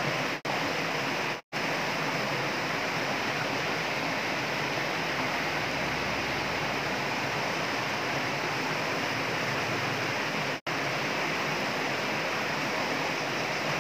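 Steady rush of turbulent water flowing past concrete walls, an even hiss with no pauses of its own. It cuts out briefly three times: near the start, about a second and a half in, and near eleven seconds.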